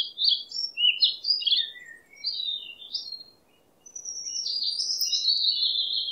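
Songbird singing: quick bursts of high chirping notes, a brief pause, then a longer run of notes that slowly falls in pitch from about four seconds in.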